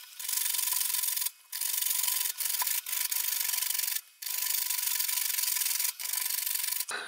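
Carrot being grated on a metal box grater: a steady, rapid rasping scrape, broken by short pauses about one and a half, four and six seconds in.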